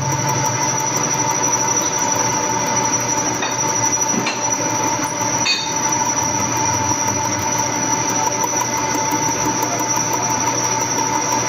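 Machine tool running with a steady whine while a narrow 1 mm cutting tool cuts a groove into a spinning metal workpiece. A couple of faint ticks come about four and five and a half seconds in.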